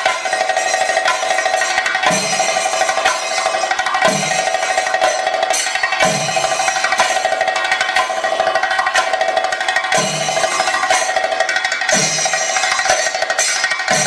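Chenda drums playing thayambaka: the lead chenda is beaten with a stick and the bare hand in a fast, dense stream of strokes over an accompanying chenda ensemble. A deep stroke lands about every two seconds.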